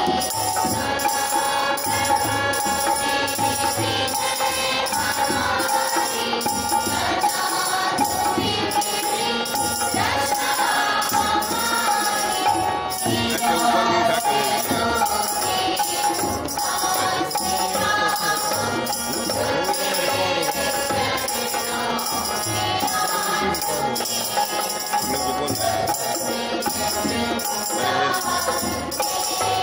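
A children's group singing a Hindi devotional prayer song, accompanied by tabla and dholak keeping a steady beat, with light high percussion on the rhythm.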